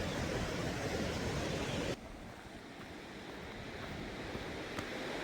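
Steady rushing noise, which drops abruptly about two seconds in to a quieter, deeper rush that slowly builds again.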